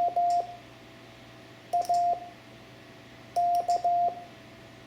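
Morse code (CW) sent as a single steady beep tone keyed on and off: dah-dah, then dit-dah, then dah-dit-dah. These are the letters M, A and K of the practice word 'make', with a gap between each letter.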